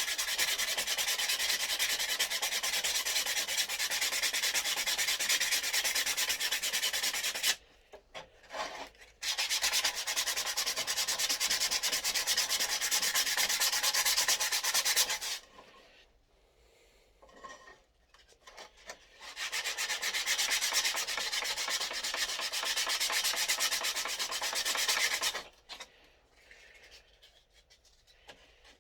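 Sandpaper rubbing on the wood of a scroll-sawn wooden name puzzle, in steady runs of sanding broken by three pauses: a short one about 8 seconds in, a longer one in the middle, and one near the end.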